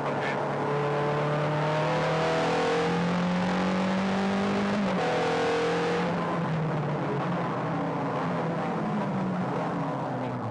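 Ferrari engine heard from inside the cabin while lapping the track. The revs climb for about five seconds, drop sharply once at a gear change, then fall away in steps as the car slows.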